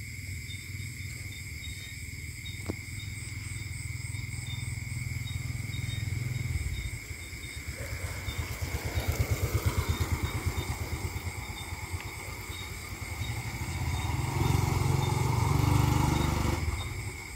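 Passenger train crossing the railway bridge over the underpass. A low rumble builds, then a run of rhythmic wheel clatter about halfway through, then a louder rumble that fades away near the end.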